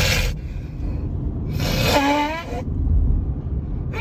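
Forceful nose blowing into a double tissue by a man with a nose congested from spring allergies. One long blow ends just after the start, and about two seconds in a second blow comes with a honking tone that falls in pitch. A steady low rumble lies underneath.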